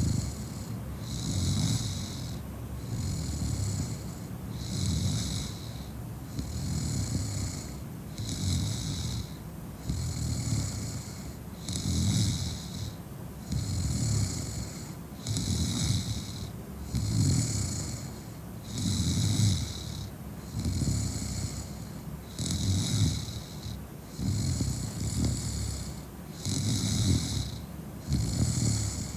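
A woman snoring in heavy, drunken sleep. A low rasping snore alternates with a hissing breath in a steady rhythm, about one breath cycle every two seconds.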